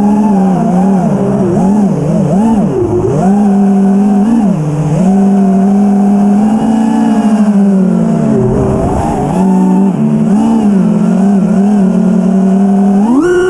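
A 5-inch FPV freestyle quadcopter's brushless motors (iFlight Xing-E 2207 1800kv on 6S, spinning 5-inch props) whine in flight. The pitch swoops up and down with the pilot's throttle changes, then climbs steeply on a hard throttle punch near the end.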